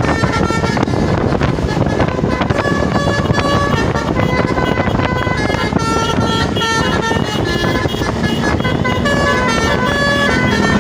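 Tour bus's Basuri 'telolet' multi-tone horn playing a melody of short, changing notes over engine and road noise.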